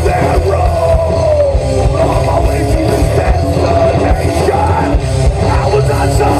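Live rock band playing loud: electric guitars, bass and drums with a steady kick beat, and a vocalist singing and yelling into a microphone over them.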